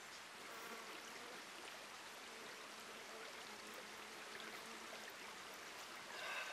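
Faint, steady trickle of a shallow forest creek, with small water sounds as water is scooped from it by hand. A brief pitched sound near the end is the loudest moment.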